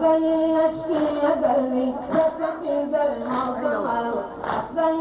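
A noha, the Shia mourning chant, sung in long held, wavering notes. Thumps about once a second come from the mourners beating their chests in time.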